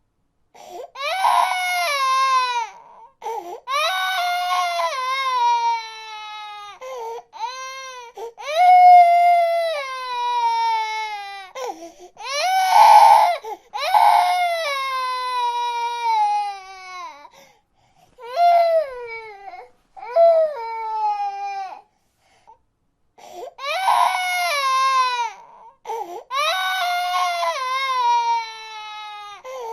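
A baby crying in a series of high-pitched wails, each falling in pitch over one to three seconds, with short breaths between and a brief pause about two-thirds of the way through.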